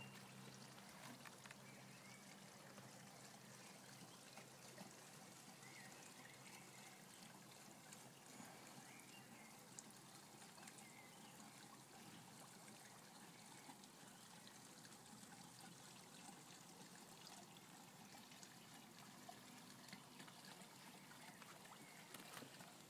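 Faint, steady trickle of water running into a garden fish pond.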